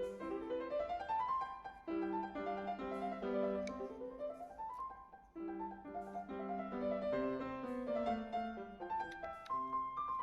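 Background classical piano music, the Allegro moderato first movement of a sonata, with quick rising scale runs near the start and again about four seconds in.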